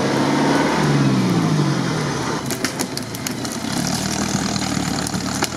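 Off-road truck's engine running, its revs falling over the first two seconds and then holding steady as it crawls through brush. Sharp clicks and cracks come in from about two and a half seconds in.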